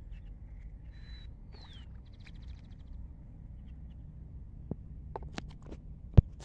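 Ducklings peeping in high, thin whistles: one held note, one falling note, then a quick run of notes. Later come several sharp clicks and one loud knock near the end.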